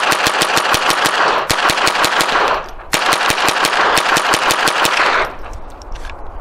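Rapid semi-automatic fire from a Smith & Wesson .22 rimfire rifle shooting .22 LR, about seven shots a second. There is a brief pause about three seconds in, then a second fast string that stops about five seconds in.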